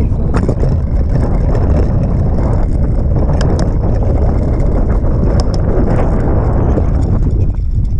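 Wind buffeting the microphone of a moving bicycle, with a steady low rumble and irregular rattles and knocks as the bike jolts over rough dry ground.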